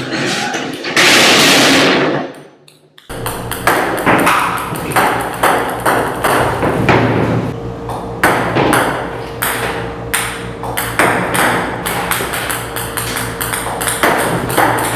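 Table tennis ball in a fast rally, many quick sharp pings off paddle and table over a steady low hum. A brief loud burst of noise comes about a second in, before the pinging starts.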